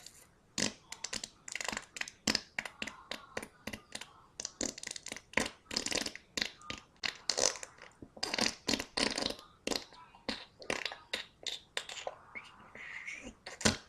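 Cartoon fart sound effect: a long run of sputtering fart noises in quick, irregular bursts, several a second.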